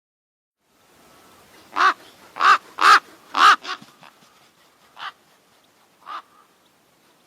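Raven calling: a series of about seven harsh caws. Four come in a quick run about two seconds in, then two more single calls follow, spaced out.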